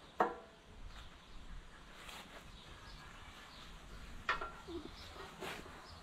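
Metal clanks from a rusty steel cultivator frame being handled: one sharp clank with a short ring just after the start, then two lighter knocks near the end.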